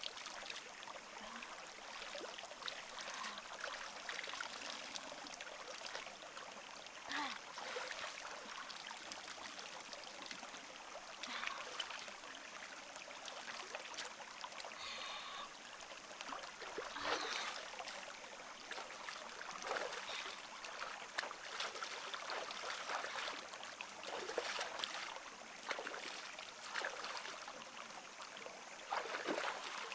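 Shallow rocky stream running, with a splash every few seconds as hands sweep water up and bare feet wade through it.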